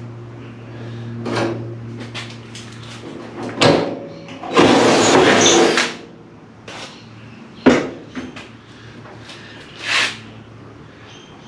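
Cordless drill running for about a second and a half, boring a bolt hole through the steel cowl joint and its rubber strip. Sharp knocks and clatter of parts being handled come before and after it.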